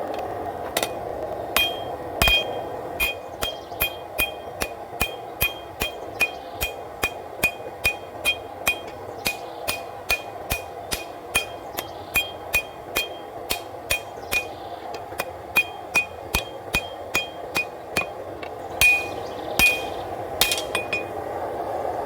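Hand hammer forging hot W-2 steel on an anvil: a long run of evenly paced blows, about two to three a second, each with a short high ring, drawing the knife blade thinner. A few heavier ringing blows come near the end, over a steady rushing noise.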